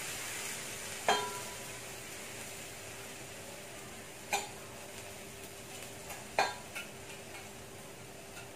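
Chopped greens sizzling in a stainless steel wok, a steady hiss that slowly fades. A few sharp clinks ring briefly over it, the loudest about a second in and the others near the middle and toward the end.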